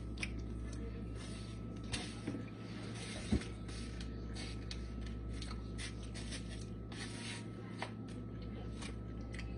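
Soft scattered clicks and scrapes of eating from a dish with a utensil, with one sharper knock about three and a half seconds in, over a steady low hum.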